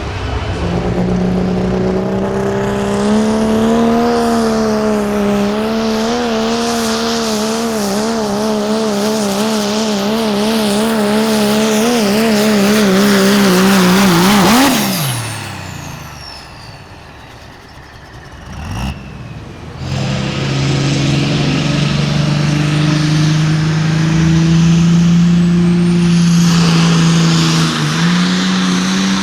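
Competition pulling vehicle's engine running hard at high revs, its pitch wavering up and down, then winding down steeply about 15 seconds in. After a quieter stretch with a single sharp click, another pulling engine comes in and runs steadily at high revs.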